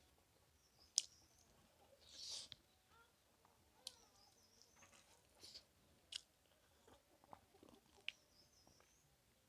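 Faint close-up eating sounds: soft chewing with scattered sharp mouth clicks, the loudest about a second in, and a brief crunchy or slurping rustle about two seconds in.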